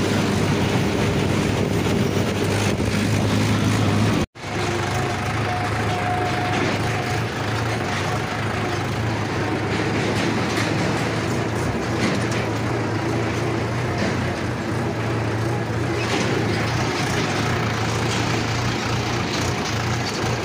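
Mahindra 585 XP Plus tractor's four-cylinder diesel engine running steadily under way, heard from the driver's seat. The sound cuts out for an instant about four seconds in.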